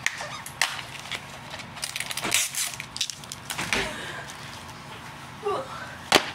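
Hands handling a plastic DVD case: scattered clicks, taps and rustles, with a short falling squeak and then a sharp click near the end.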